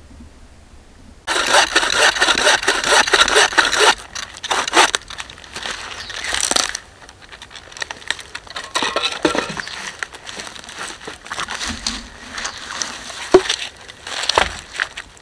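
Wooden-frame bow saw cutting resinous pine, starting about a second in with fast, loud back-and-forth strokes, then slower, broken strokes. Near the end come a few sharp knocks of wood as the cut piece is handled.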